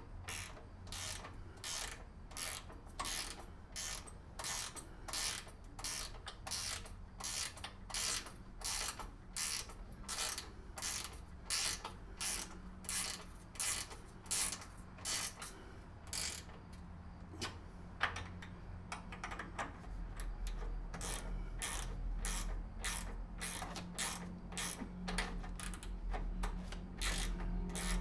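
Ratchet wrench clicking in a steady run, about two clicks a second, as a nut is tightened down on a snowblower's handle bolt.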